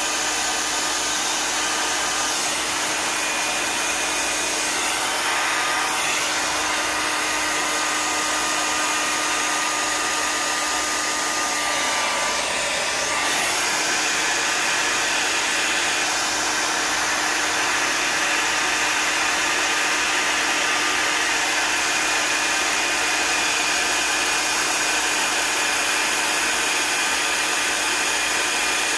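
Handheld hair dryer blowing steadily, held close to a wet acrylic-poured canvas to push the paint across it in a Dutch pour, with a brief dip in its sound about twelve seconds in.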